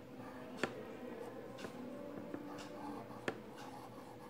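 Marker pen writing a word on a workbook page: a run of soft scratchy strokes on paper, with two sharp taps of the pen, one under a second in and one past three seconds.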